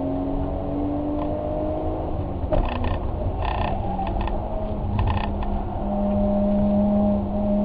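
A vehicle engine running at a steady speed. Its pitch creeps up for the first two seconds and then settles lower, with a handful of sharp clattering knocks in the middle.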